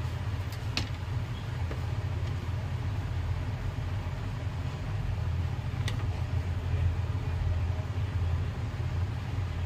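A steady low hum, with a few light clicks as multimeter probe tips touch points on a laptop motherboard: three in the first two seconds, and one more about six seconds in.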